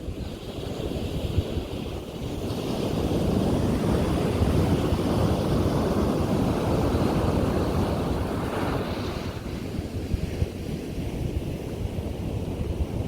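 Ocean surf breaking on a beach: a wave's wash swells a couple of seconds in, holds for several seconds and eases off, over a steady low rumble with wind buffeting the microphone.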